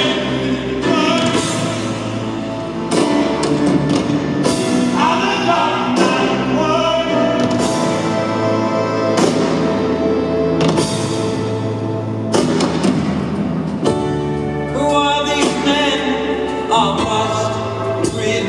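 Loud music with singing, played over a large arena's sound system.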